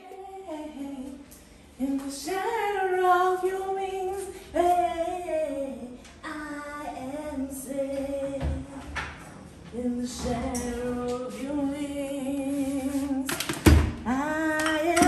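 A woman singing a melody unaccompanied, in long held notes that slide between pitches. A sharp knock sounds near the end.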